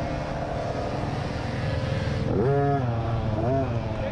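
50cc youth dirt bike engine heard from on board, running at part throttle along a trail. About two seconds in it revs up sharply and drops back, then blips briefly once more near the end as the rider works the throttle through a turn.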